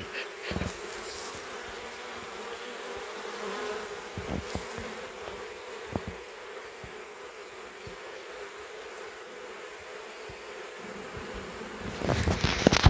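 Honeybees buzzing around an opened hive: a dense, steady hum of many bees at one constant pitch. A louder thump and rumble come near the end.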